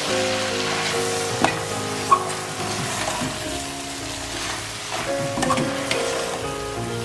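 Spaghetti, chicken and peppers sizzling in a steel pot as they are stirred and tossed together, with two sharp knocks of the utensil against the pot about one and a half and two seconds in. Soft background music plays underneath.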